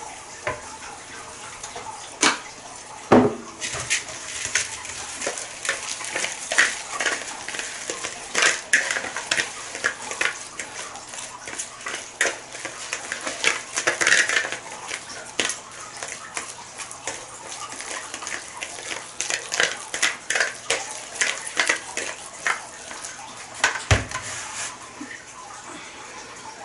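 A spoon clinking and scraping irregularly against a cut-glass mixing bowl as oats, mashed banana and peanut butter are stirred together, with a heavier knock about three seconds in and another near the end.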